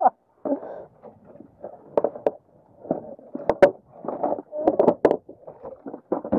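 Indistinct voices on the boat, broken and overlapping, with a couple of sharp knocks about three and a half seconds in.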